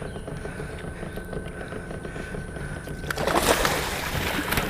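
Steady low hum of the boat's motor, then about three seconds in, sudden loud splashing as a hooked barramundi thrashes at the surface beside the boat.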